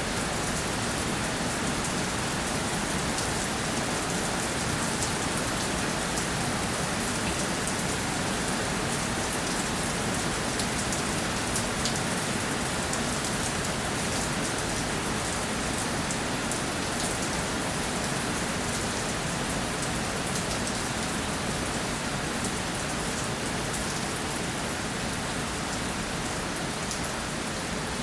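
Steady rainfall, with many small drops pattering on a surface.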